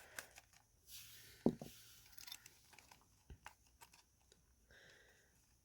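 Faint hand-handling noises of small plastic parts and wiring: scattered light clicks, the sharpest about a second and a half in, with a brief rustle.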